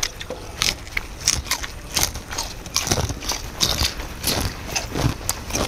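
Close-up chewing and biting of crisp raw vegetables such as lettuce: many quick, irregular crunches.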